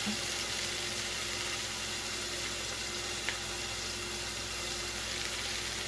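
Oil sizzling steadily in a saucepan around a piece of onion and cubanelle pepper and a spoonful of seasoning paste, with one small click about three seconds in.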